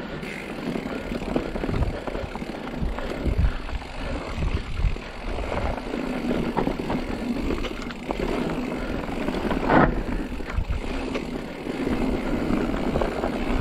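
Mountain bike rolling down a rough dirt trail: tyres on dirt, and the bike rattling and clunking over roots and rocks in many short knocks, the sharpest about ten seconds in, with wind on the microphone.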